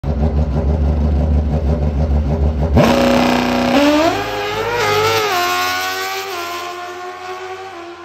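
Pro Stock drag-racing motorcycle engine running at low revs on the line, then revving up sharply about three seconds in as the bike launches. The pitch keeps climbing through several quick gear changes and fades as the bike pulls away down the strip.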